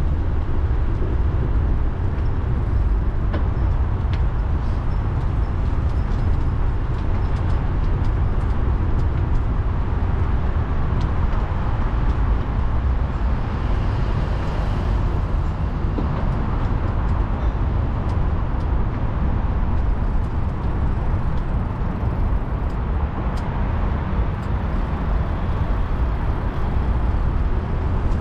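Tyres of a 2004 Cannondale F400 bicycle rolling along a path: a steady low rumble with faint scattered ticks and crunches.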